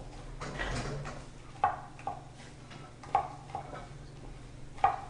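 Metal tongs clicking against a metal pot, sharp ringing clicks in loose pairs, as chunks of goat meat are turned while searing, over a steady low hum.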